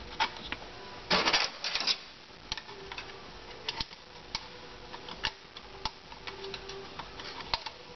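Hand work on a GM 440-T4 transmission's 1-2 band servo: the spring-loaded servo cover is pressed into the aluminium case and its retaining snap ring is worked into place. A short, louder rasp comes about a second in, then irregular sharp metallic clicks and taps follow.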